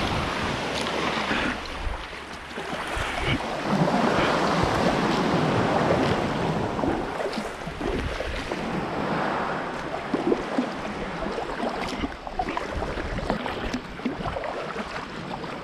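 Sea water washing and lapping, swelling louder for a few seconds in the middle, with wind rumbling on the microphone and a few small knocks in the second half.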